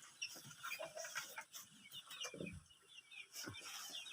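Laying hens clucking and chirping faintly, many short calls scattered throughout.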